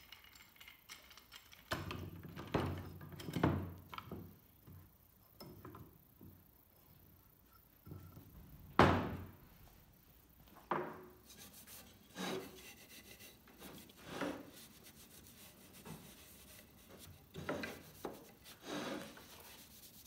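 Irregular knocks, clunks and scrapes of steel pipe clamps and hardwood pieces being handled on a wooden workbench. A single sharp clunk about nine seconds in is the loudest.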